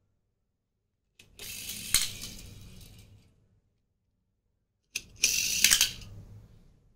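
Two Hot Wheels die-cast toy cars, one after the other, pushed off and rolling fast across a ceramic tile floor, the first about a second in and the second about five seconds in. Each run starts with a tap, rattles and hisses for a second or two with a sharp click partway, then fades out.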